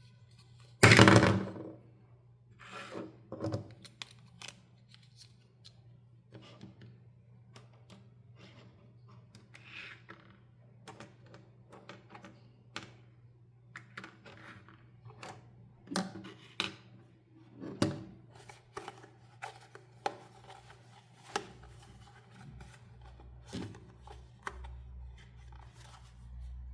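Doll toy packaging being handled and opened: a loud thunk about a second in, then a string of light clicks, taps and knocks.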